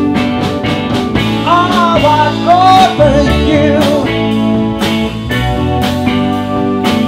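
Live rock band playing a passage between sung lines: electric guitars, electric bass and drum kit, with steady drum strokes and a melody line bending in pitch a couple of seconds in.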